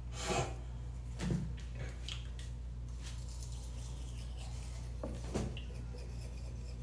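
Toothbrush scrubbing teeth, faint, with a few brief louder scrapes and rustles, over the steady low hum of a bathroom exhaust fan.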